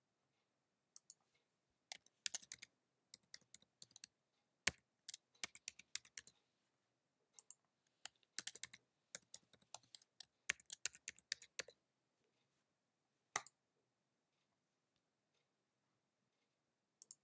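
Computer keyboard being typed on in short irregular runs of key clicks as a password is entered twice. The typing stops after about twelve seconds, followed by two lone clicks.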